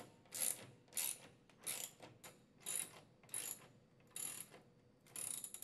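Ratchet wrench with a socket driving #14 x 1-inch lag screws through a plastic dispenser back plate into wall anchors, its pawl clicking in short bursts on each return swing, about eight strokes at a steady pace of one every two-thirds of a second.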